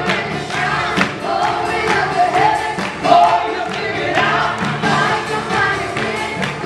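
Live gospel worship music: singers with microphones and a band with drums perform a praise song, the voices holding long sung notes over a steady beat.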